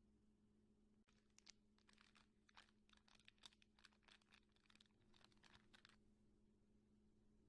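Faint, rapid, irregular clicking and crackling that starts about a second in and stops about six seconds in, over a steady low hum.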